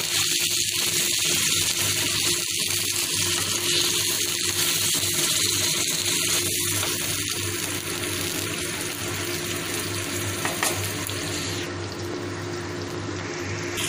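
Marinated chicken pieces frying in hot oil in a kadhai, freshly added: a steady sizzling hiss that eases slightly toward the end.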